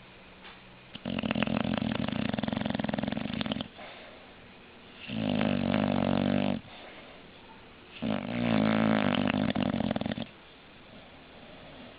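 An English bulldog snoring: three long, loud snores with a rapid flutter, each lasting one and a half to nearly three seconds, with a pause of a second or two between them.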